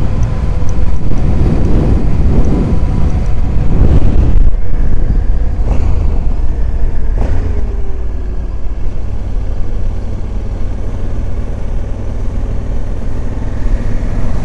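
Motorcycle engine running on the move with wind rushing over the microphone; the engine note rises and falls in the first few seconds, then settles lower and quieter as the bike rolls downhill.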